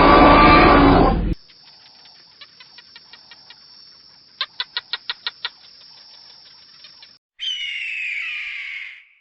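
A loud animal roar that cuts off suddenly, then a bird's rapid run of short chirps, loudest in a burst of about seven. Near the end comes one louder squawking call that falls in pitch.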